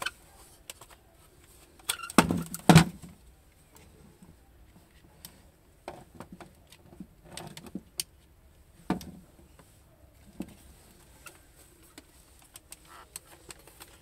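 Plastic knocks and clicks as a broken cordless electric floor sweeper is turned over and handled, its body and handle pole clacking. A cluster of loud knocks comes about two seconds in, with lighter clicks scattered after.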